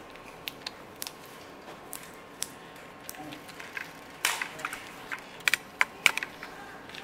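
Tablet blister strip being handled and a tablet pressed out through its foil: scattered sharp plastic clicks and crackles, thickest in the second half.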